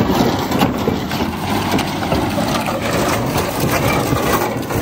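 Small Honda 4WD kei mini truck's engine running at low speed as it crawls over wooden log steps, with scattered knocks from the truck on the logs.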